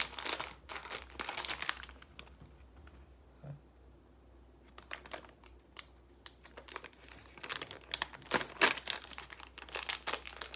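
Plastic snack packaging crinkling as it is handled and opened: a flurry of crackling, a quieter spell of a few seconds, then more crinkling that is loudest near the end.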